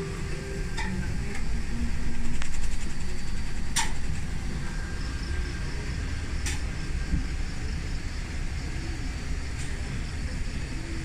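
Steady low rumble of the safari tram running, heard from on board. A few sharp clicks sound about a second, four seconds and six and a half seconds in.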